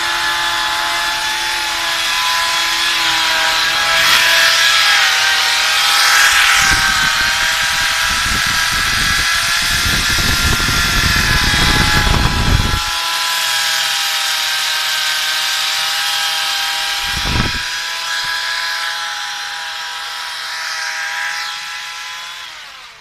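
Electric core drill with a diamond core bit whining steadily as it runs, grinding harshly into the wall for several seconds in the middle and once more briefly later. Near the end the motor winds down, its pitch falling.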